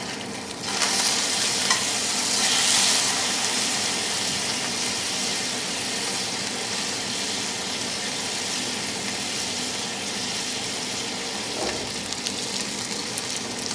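Chicken thighs in a sugary maple-sriracha marinade sizzling in hot olive oil in a stainless steel sauté pan. The sizzle jumps louder under a second in as the thighs are turned over with tongs, then settles into a steady sizzle.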